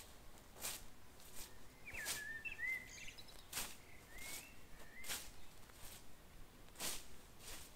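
Swishes of a long-handled blade slicing through lupines and undergrowth: about seven quick strokes at irregular intervals of roughly a second. A bird chirps a few times between the strokes.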